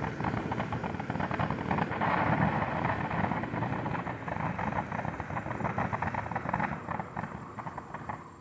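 Winda 'Dancing with Ghosts' firework fountain burning: a steady hissing spray thick with rapid crackling, easing off a little near the end.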